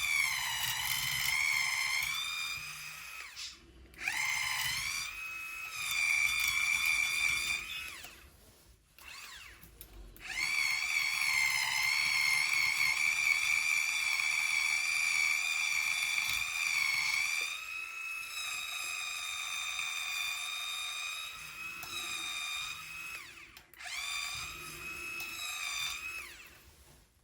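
A small motor-driven tool whining in runs of several seconds, some starting with a brief rise in pitch, with short pauses between them.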